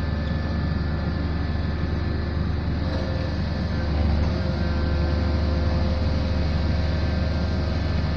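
Pile-driving rig's engine running steadily: a continuous low mechanical drone that gets a little louder about four seconds in, with no hammer blows.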